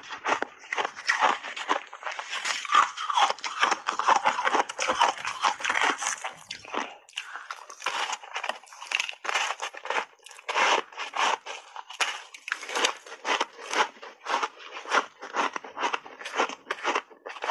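Frozen block ice being bitten and chewed, close to a lapel microphone: a dense run of crunching for the first several seconds, then separate crunches at an even pace of about two to three a second.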